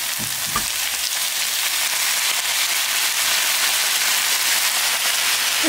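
Stir-fry of meat and vegetables sizzling in a hot frying pan on a gas camp stove, the hiss growing louder as bourbon is poured from a can into the pan.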